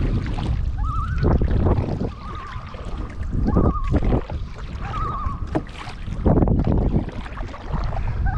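Common loon giving its wavering tremolo call, a short quavering tone repeated several times. Under it are a steady low rumble and a few knocks.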